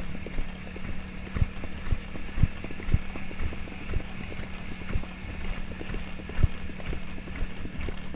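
A grey horse's hoofbeats on a dirt track, cantering in a steady rhythm of about two thuds a second, picked up from the rider's chest. The thuds are heavier in the first few seconds and lighter later.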